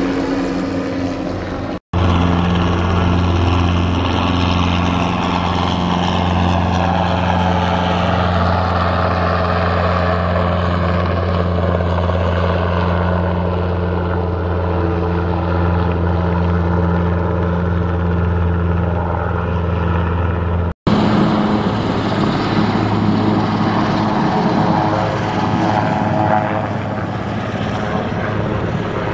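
Helicopters flying overhead in three clips joined by abrupt cuts. First a small light helicopter climbs away. Then a small two-bladed light helicopter gives a steady low rotor drone. Then a large twin-turbine helicopter flies low with rotor chop and a high turbine whine.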